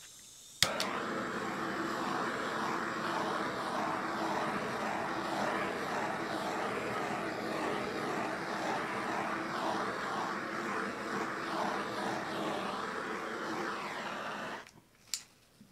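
Small handheld electric heat gun switched on with a click about half a second in, its fan motor running steadily with a rush of air, then switched off shortly before the end.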